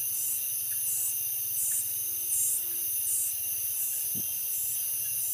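Night-time insect chorus of tropical forest crickets: a steady high shrill, with a pulsing call repeating a little faster than once a second.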